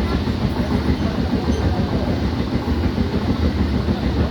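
Train running on the tracks: a steady low rumble with fast, irregular clatter.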